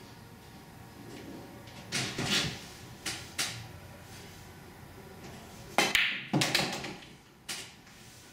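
Pool balls in play: a cue tip striking the cue ball, sharp clacks of ball against ball and duller knocks of balls off the cushions, as a series of separate hits. The loudest cluster of clacks comes about six seconds in.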